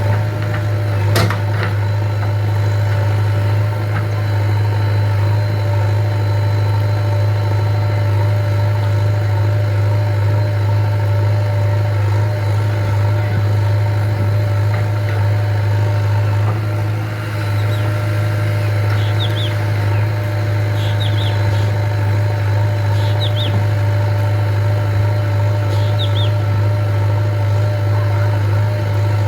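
JCB 3DX backhoe loader's diesel engine running at a steady, unchanging drone. A few short bird chirps come through in the second half.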